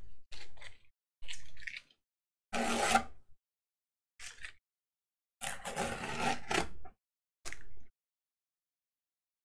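Masking tape being peeled off the edges of a watercolour sheet taped to a board, in about seven short pulls, the longest a little past halfway.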